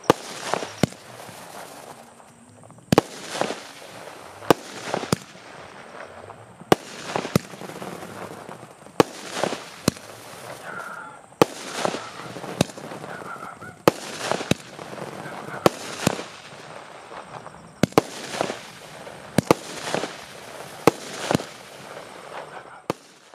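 A 120-shot sky shot cake firing shell after shell. Sharp bangs come in pairs about half a second apart, each shell's launch followed by its burst, with a new pair every one and a half to two seconds.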